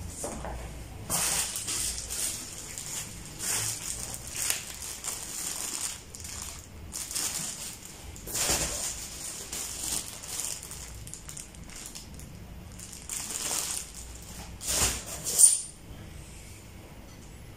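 Plastic-bagged accessories crinkling and rustling as they are handled and lifted out of a polystyrene foam packing tray, in irregular bursts with the sharpest crinkle near the end.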